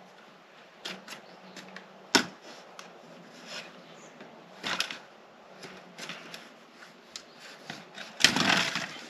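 Black corrugated plastic drainage pipe rustling, knocking and scraping as it is handled and pushed into place, in scattered short bursts with a sharp click about two seconds in and a louder scraping burst near the end.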